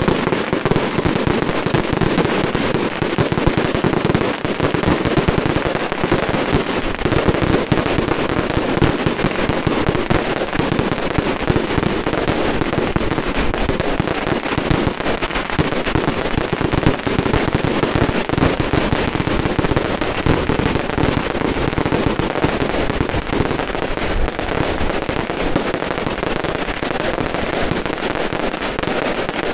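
Firecrackers and fireworks going off in a dense, unbroken barrage, hundreds of pops running together into one continuous crackle.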